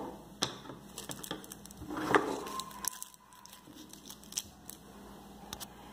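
Plastic packaging crinkling while items are handled, with scattered light clicks and knocks and a louder rustle about two seconds in.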